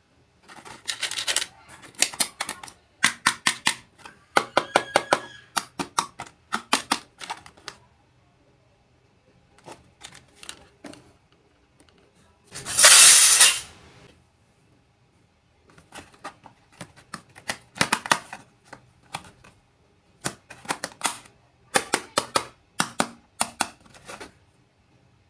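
Small pieces of a miniature toy kitchen set being handled: clusters of quick clicks and light clinks. About halfway through comes one louder, scratchy rush of noise lasting about a second.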